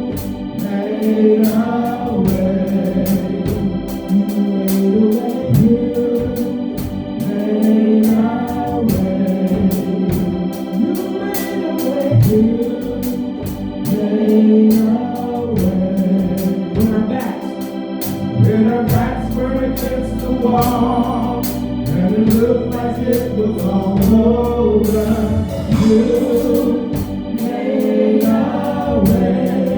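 Gospel worship music led by an organ, with a steady beat of percussion.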